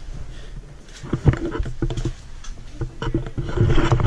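Scattered knocks, taps and scuffs of people climbing over rock, over a low rumbling noise that grows louder near the end.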